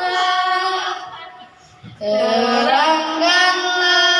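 A girl singing solo with long held, sliding notes; the voice fades out about a second in, pauses briefly, then comes back in at about two seconds.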